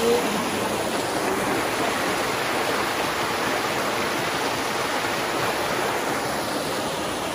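Steady rushing of flowing water in a wadi stream.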